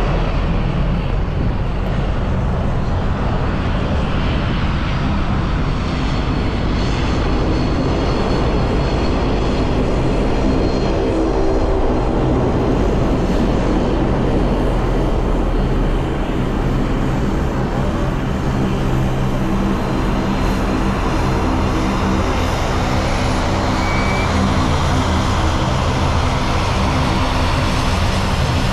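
Twin turboprop engines and propellers of a De Havilland Dash 8 Q400 running at taxi power: a steady drone with several low humming tones.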